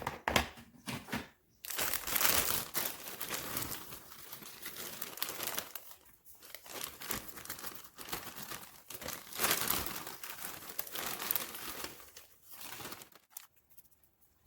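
Plastic packaging crinkling and rustling in repeated bursts as it is handled. It starts after a few short clicks and stops shortly before the end.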